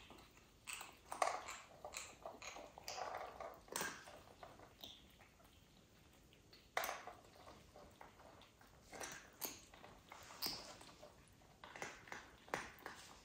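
Cats eating dry food from a bowl: irregular crunching and clicking of chewing, in short scattered bursts.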